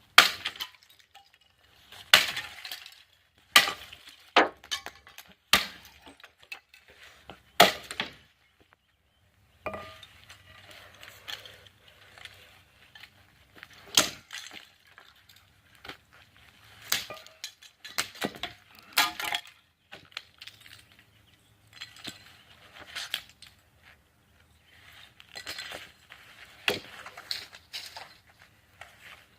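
An alarm clock being smashed: about six sharp, separate blows in the first eight seconds, then clinking and rattling of broken pieces with scattered harder hits.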